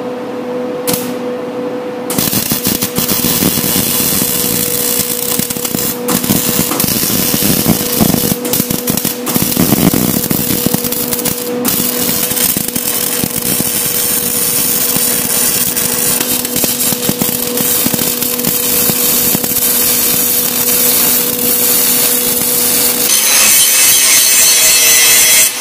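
MIG welder laying a bead on the steel front spindle mounts: a dense, steady crackle that starts about two seconds in, with a low hum beneath. Near the end an angle grinder takes over, grinding the steel with a smoother, higher hiss.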